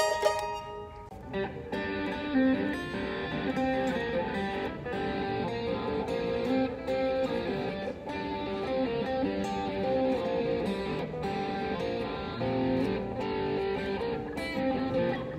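Briefly a mandolin's plucked notes, then after a cut an electric guitar being played: a steady run of picked notes with some strummed chords.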